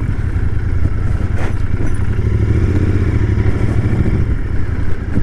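Royal Enfield Continental GT 650's parallel-twin engine running steadily while the bike is ridden, with one brief click about a second and a half in.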